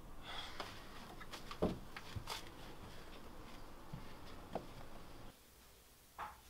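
A few light footsteps and small knocks over a low background hiss. The background then drops quieter all at once, and one more short knock comes near the end.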